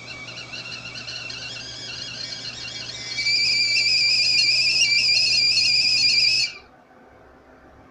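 Stainless-steel stovetop whistling kettle whistling at the boil: a two-note, slightly warbling whistle that grows louder about three seconds in, then cuts off suddenly.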